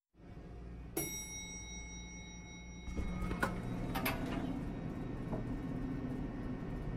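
Elevator sound effect: a low hum, then a single chime about a second in that rings out for about two seconds, then the doors sliding open about three seconds in with a few clacks, leaving a steady hum.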